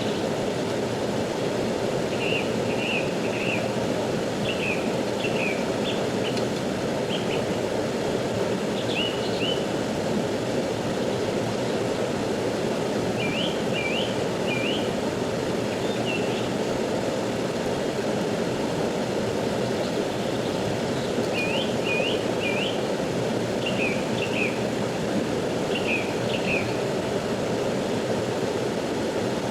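Steady rush of a flowing river, with a bird calling over it in short bursts of several quick chirps every few seconds.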